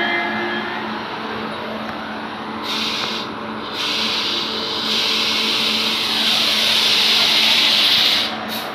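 Running noise of passenger trains on adjacent tracks, heard from aboard a coach: a steady rumble of wheels on rails with a low hum underneath. A loud hiss comes and goes, grows strongest in the second half and cuts off suddenly near the end.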